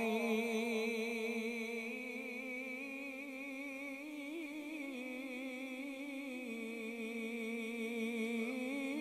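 A male qari's voice holds one long melodic note through an amplified microphone, a drawn-out vowel in the Bismillah of a Quran recitation (tilawat). The note wavers slightly and steps up in pitch about six and a half seconds in.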